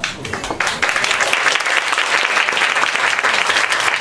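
Audience applauding, the clapping filling in about half a second in and then holding steady.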